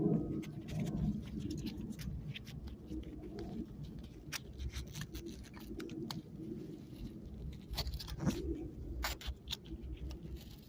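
Scattered light clicks and handling noises from a seat belt cutter being worked with the hands, over a low, muffled background.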